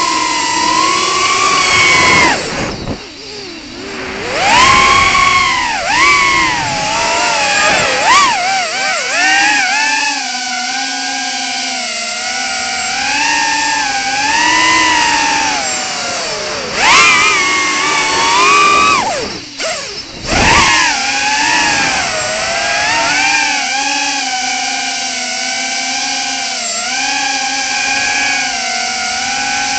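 Emax Tinyhawk 2 micro FPV quadcopter's brushless motors whining up close, the pitch rising and falling constantly as the throttle changes during freestyle flying. The whine drops away briefly about three seconds in and again around two-thirds of the way through, where the throttle is cut.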